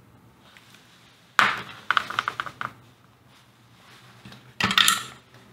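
Small metal hand tools clinking and clattering as they are handled and set down on the workbench. The first burst comes about a second and a half in as a quick run of clicks; a second, shorter clatter comes near the end.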